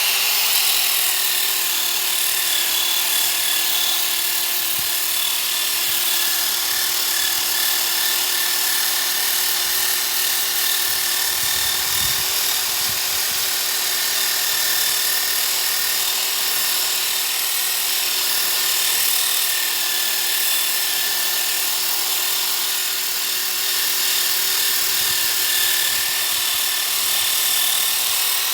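Electric drill fitted with a 125 mm sanding-disc adapter running at steady speed, a constant motor whine over the hiss of the abrasive disc sanding a wooden tabletop.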